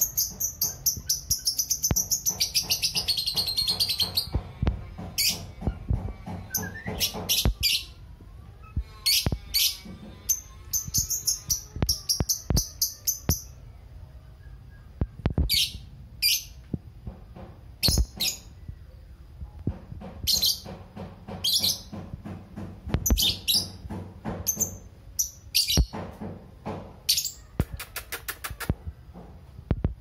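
A lovebird's ngekek song: long runs of rapid, shrill, high-pitched chirps strung together for several seconds at a time, broken by short pauses.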